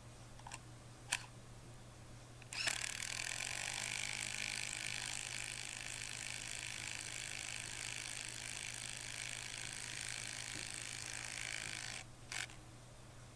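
A few light clicks, then a cordless drill running steadily into a timber fence post for about nine seconds before stopping abruptly, with one more click just after.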